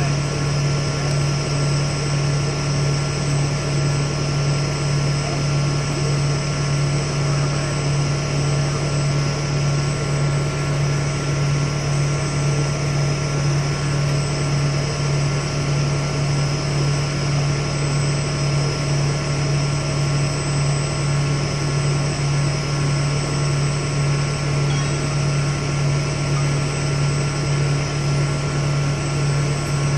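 An engine running steadily at constant speed: an even low drone with a few faint steady whines above it.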